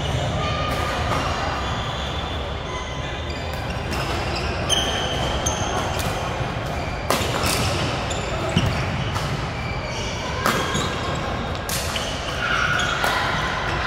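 Badminton rally in a sports hall: rackets hit the shuttlecock in a string of sharp cracks about every one and a half to two seconds, over the hall's echoing background noise and murmur of voices.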